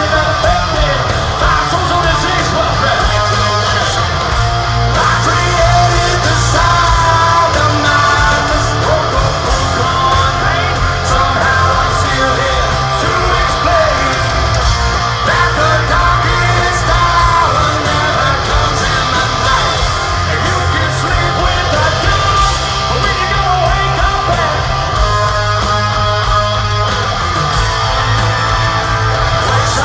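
Hard rock band playing live and loud: distorted electric guitars, bass and drums, with a lead singer's vocals over them.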